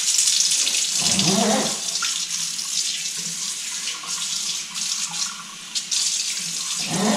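Water running from a pull-out kitchen tap into a ceramic Belfast sink, coming on sharply at the start. The spray head is pulled out on its hose and held down in the sink while the stream runs steadily.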